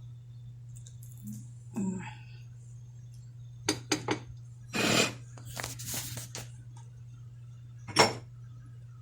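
Utensils clinking and scraping against a dish while cobbler is served. There are scattered clinks, a longer scrape about five seconds in, and one sharp knock near the end, over a steady low hum.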